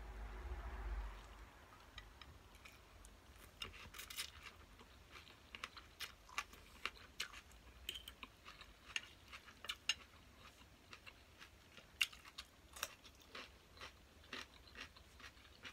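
Close-up eating of glass-noodle salad with raw cucumber: irregular crisp crunches and chewing clicks, starting about two seconds in.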